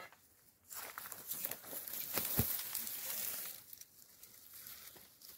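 Dry grass and stubble rustling and crackling for about three seconds, with one sharp thump in the middle, then quieter.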